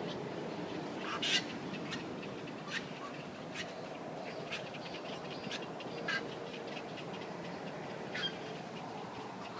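A flock of wild birds calling, with many short calls at irregular intervals, the loudest about a second in, over a steady low background noise.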